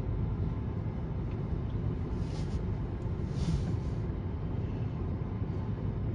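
Steady low rumble of a car driving, with two brief hissing swells about two and three and a half seconds in.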